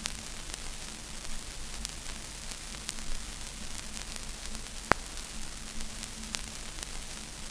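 Vinyl record surface noise under a stylus before the music starts: a steady hiss and low mains hum with scattered clicks and pops, the sharpest about five seconds in.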